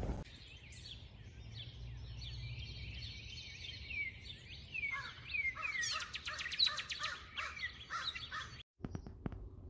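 Several birds chirping and singing together over a low steady rumble, the chirps growing busier from about five seconds in, with quick rapid trills; the sound cuts off abruptly near the end.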